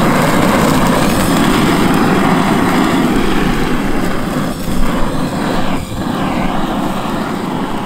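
Handheld gas torch burning with a steady rushing flame noise while it sears steak on a grill grate, dipping briefly twice past the middle.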